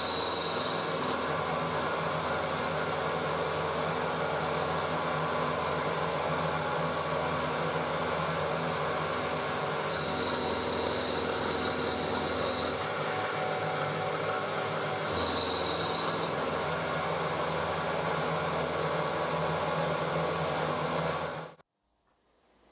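Milling machine running with its end mill cutting a slot in a steel bar: a steady machine drone with a faint high whine that comes and goes, a little after halfway and again later. The sound cuts off suddenly near the end.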